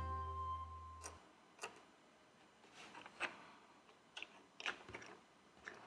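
Faint, irregular light clicks and taps of miniature toy pieces being packed back into their small box, about eight separate clicks. A closing music note fades out in the first second.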